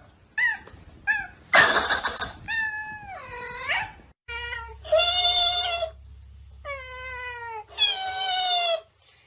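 Cat meowing and yowling: a few short meows, a harsh noisy cry, then several long drawn-out yowls, one sliding down and back up in pitch.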